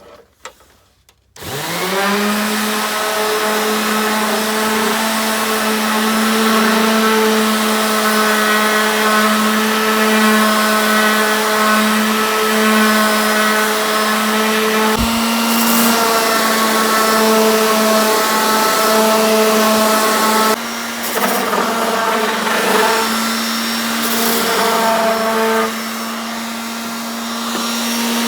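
Electric sander switched on about a second in, its motor rising quickly to speed, then running steadily as it sands pallet-wood boards with 80-grit paper. The level dips briefly a couple of times, as the pressure on the work changes.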